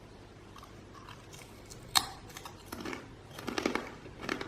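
A crisp pink senbei rice cracker made with sakura and squid, bitten with one sharp snap about two seconds in, then chewed with crunching.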